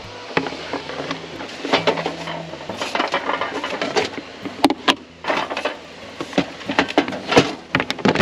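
Clattering and clinking of dishes and utensils being handled: an irregular run of sharp knocks and clicks, the loudest a few about four and a half and seven and a half seconds in.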